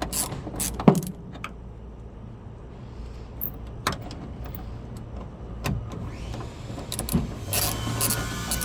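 A few sharp clicks of a 10 mm ratchet in the first second, then scattered single clicks and knocks from tools and parts being handled. A steadier low rumbling noise comes in near the end.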